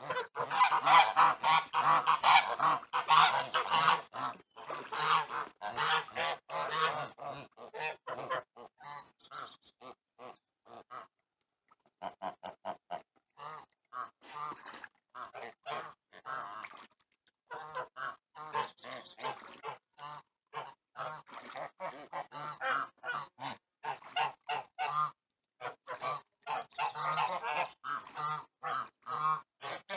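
Flock of white domestic geese honking and cackling, with many short calls overlapping. The calls are densest and loudest for the first several seconds, drop off briefly about eleven seconds in, then resume in shorter runs.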